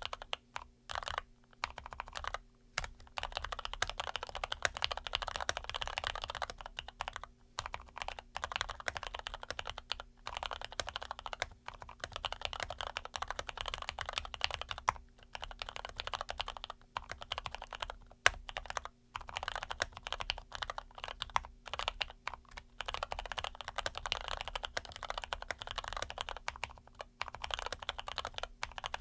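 Continuous fast typing on an ABKO AR87 mechanical keyboard with Cherry MX Red linear switches, lubed and filmed, with lubed Everglide stabilizers; a steady run of key clacks broken by brief pauses.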